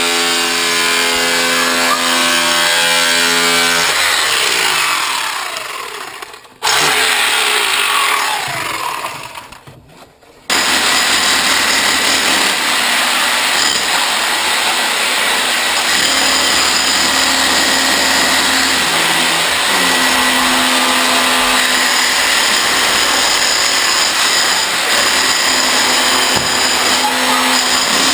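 Hand-held electric power tool motor running, twice winding down with a falling pitch, then running steadily again.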